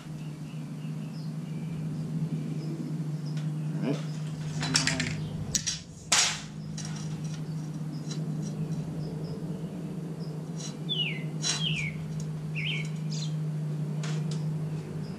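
A few brief scraping and clattering noises about four to six seconds in, as the straightedge and sheet metal are handled, over a steady low hum. Near the end a bird gives several short falling chirps.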